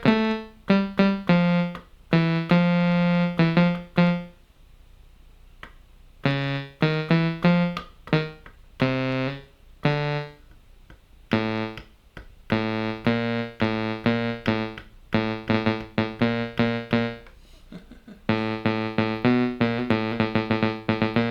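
Korg NTS-1 digital synthesizer playing bright sawtooth notes in quick runs of short repeated notes. One note is held for about two seconds near the start, and there is a pause of about two seconds a little later before the runs go on.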